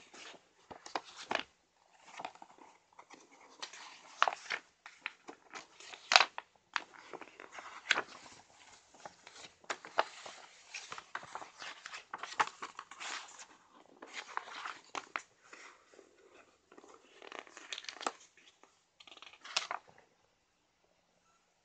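Pages of a glossy paper catalogue being turned and handled, giving irregular rustling and flapping of paper that stops shortly before the end.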